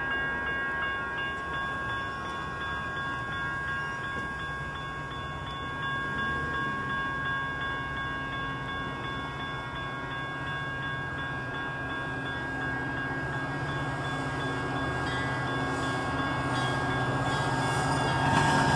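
Railroad grade-crossing bell ringing steadily while a Metra diesel locomotive approaches. Its engine rumble grows louder over the last few seconds.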